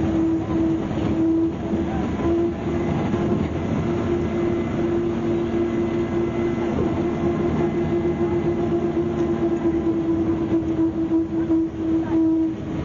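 MCW Metrobus double-decker with a Cummins engine, heard from on board while under way. The engine and driveline run steadily with a constant whine, along with rattles from the body.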